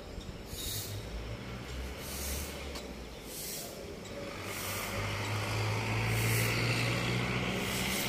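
Motor vehicle engine running, a steady low hum that grows louder about halfway through, with a hiss over it.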